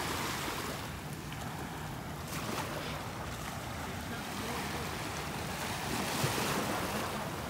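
Small waves lapping and washing up onto a sandy shore in a few gentle surges, with wind rumbling on the microphone.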